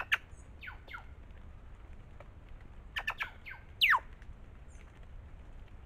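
Plush-crested jays calling: short sharp calls and quick downward-sliding notes in two bursts, one near the start and one about three to four seconds in, the loudest a falling note about four seconds in.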